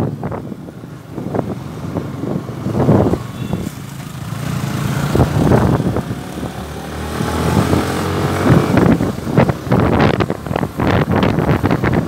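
Motorcycle engine running while riding, with heavy wind buffeting on the microphone; the engine note rises about two-thirds of the way in.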